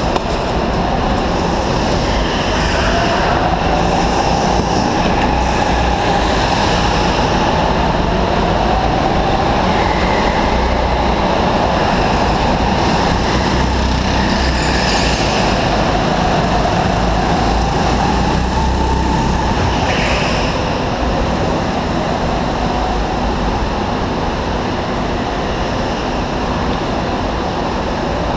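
Go-kart motor running at speed, with a whine that rises and falls in pitch as the kart speeds up and slows through the corners, over a steady rushing noise.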